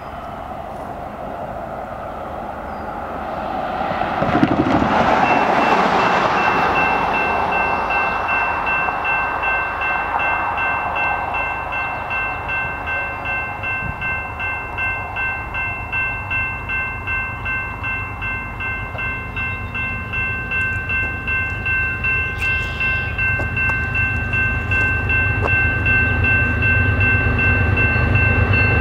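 Railroad crossing warning bell starts ringing about five seconds in and keeps up a steady, pulsing ring while the gate arms lower, signalling an approaching train. Just before it comes a louder rush of noise, and a low rumble builds near the end as the train draws near.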